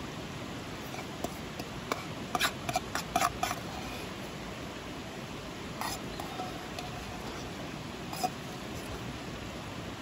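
A metal spoon clinking and scraping against a stainless steel bowl while the last of the curry rice is eaten up: a quick run of clinks a couple of seconds in, then single clinks later. A shallow river's steady rush runs underneath.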